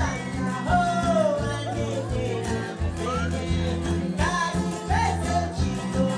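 Live Malawian band music: a man singing over a plucked guitar and a repeating deep bass line.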